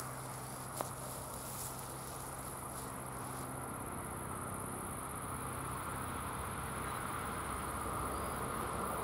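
Insects chirping steadily in the grass, a high even trill. Under it the rumble of an approaching train grows slowly louder through the second half.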